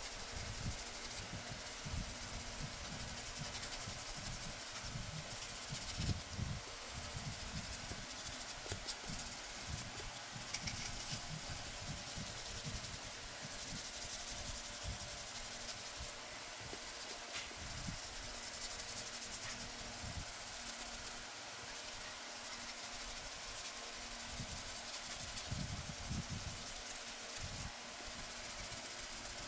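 Hand sanding: a sanding block rubbed back and forth over the plastic horn plate of a helmet, a steady high hiss of rubbing strokes with occasional light knocks from handling the piece.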